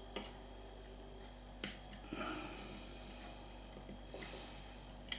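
Lock pick and tension tool clicking and tapping lightly in a Mul-T-Lock MT5 lock while a fresh pick is put in. About half a dozen sharp metallic clicks, the loudest about one and a half seconds in.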